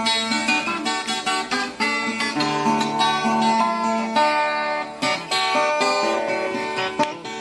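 Instrumental moda de viola: a viola caipira plucked in quick runs of notes over a lower bass line, with no singing.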